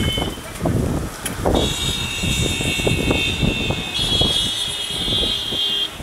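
Gusty wind buffeting the microphone ahead of an approaching dust storm, in uneven low rumbles. A steady high-pitched tone runs from about a second and a half in until just before the end.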